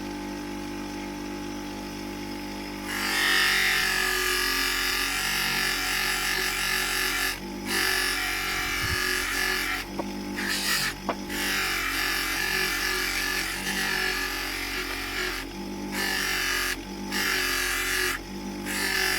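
Electric buffing wheel running with a steady hum. From about three seconds in, the metal body of a small copper palm grease gun is pressed against it, giving a loud, even hiss. The hiss breaks off briefly several times as the piece is lifted away and put back.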